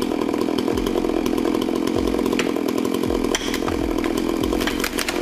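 Chainsaw engine running steadily at high revs, setting in abruptly.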